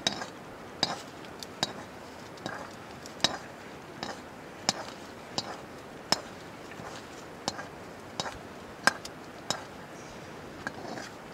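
Metal ladle clinking against a metal cooking pot as the contents are stirred: about a dozen sharp clinks, irregularly spaced, roughly one a second.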